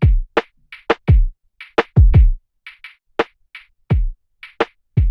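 Electronic drum-machine loop: deep kick drums that drop in pitch, sharp snare hits and short hi-hat ticks in a steady pattern, running through Ableton's Glue Compressor with about 5 dB of gain reduction.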